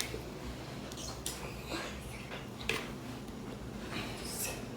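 Faint, scattered soft scrapes and rustles of kitchen things being handled, a few short ones spread over several seconds.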